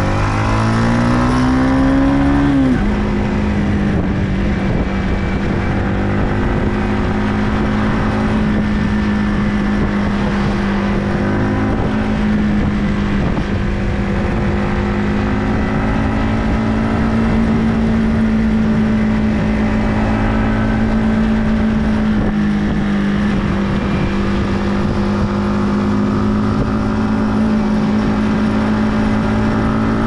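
Yamaha MT-15 V2 motorcycle's 155 cc single-cylinder engine under acceleration, its pitch rising, then dropping suddenly at an upshift about three seconds in, after which it runs at a nearly steady pitch while cruising.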